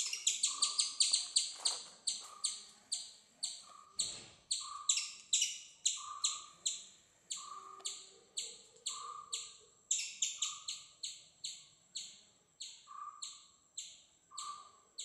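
A bird calling with a long series of sharp, high chirps, about three or four a second at first and slowing later, with a lower note recurring about once a second. A single thump about four seconds in.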